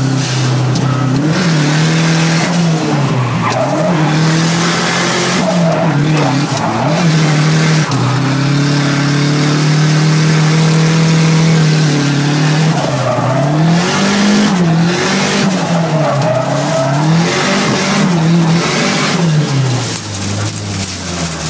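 Turbocharged KA24 four-cylinder engine of a Nissan 240SX (S14), heard from inside the cabin while drifting, revving up and down over and over with one long held high rev in the middle and a rowdy exhaust note. Tyre squeal runs under it, and the engine settles lower near the end.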